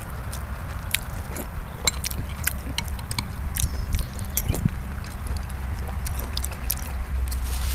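Close-miked eating sounds: chewing and biting, with a run of short sharp wet mouth clicks and smacks over a steady low hum.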